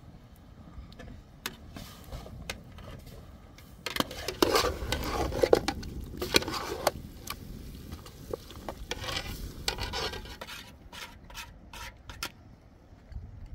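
Scraping and rubbing in loud spells, starting about four seconds in and again near nine seconds, among scattered clicks, then a quick run of sharp taps near the end.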